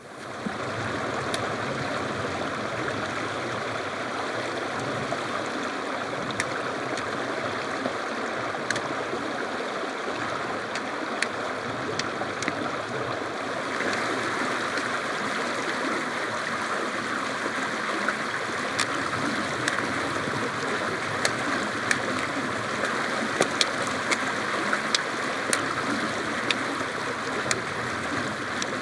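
Stream running steadily over rocks, with scattered sharp clicks that come more often in the second half.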